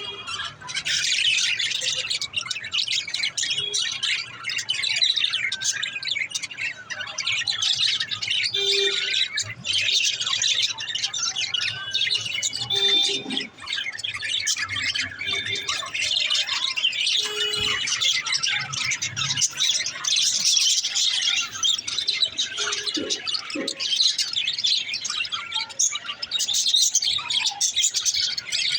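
A group of pet budgerigars chirping and chattering continuously, many quick high calls overlapping, with an occasional lower note.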